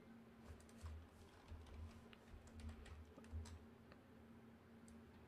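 Faint computer keyboard typing, scattered key clicks over a low steady hum.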